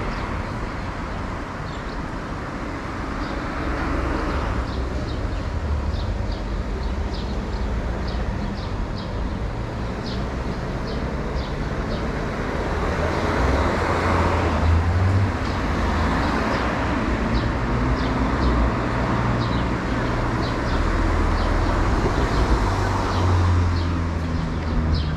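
Bernina Express train rolling along the track, heard from on board: a steady low rumble with a light, even ticking over it.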